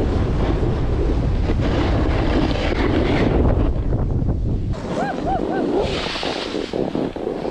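Wind buffeting a moving action camera's microphone, with the hiss and scrape of sliding down a groomed ski piste. The low rumble eases a little past halfway, followed by three short squeaks and a brief burst of hiss.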